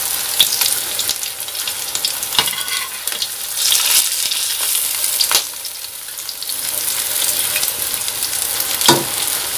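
Cassava fritters sizzling steadily in hot oil in a steel wok, over a gas flame the cook finds too high, with a few short scrapes and taps of a spatula against the pan as they are turned.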